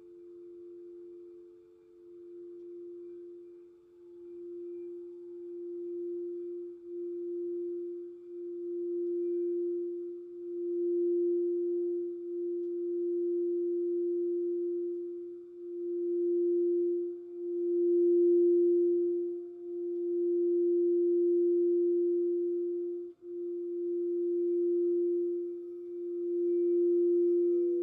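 Crystal singing bowl sounding one steady, sustained tone that swells and ebbs in slow pulses, growing louder over the first half. A second, higher bowl tone fades out about four seconds in, and another higher tone comes in near the end.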